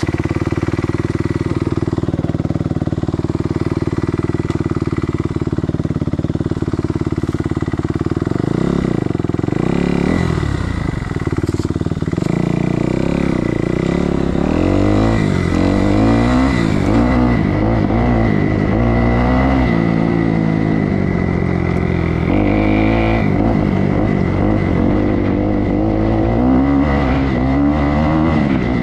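Kawasaki KX250F motocross bike's single-cylinder four-stroke engine idling steadily, then from about eight seconds in revving up and down again and again as the bike is ridden, the pitch rising and falling with the throttle.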